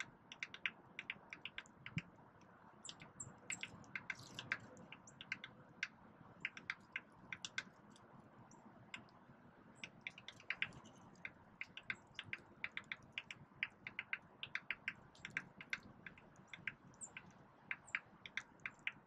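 Dark-eyed juncos and other small birds pecking at a seed cake and scattered seed on the snowy ground: an irregular run of sharp little clicks, several a second, with a few faint high chips now and then.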